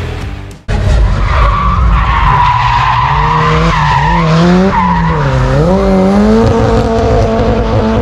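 A drift car sliding, its engine held at high revs and rising and falling in pitch while the tyres squeal. It cuts in suddenly under a second in, just as the music fades away.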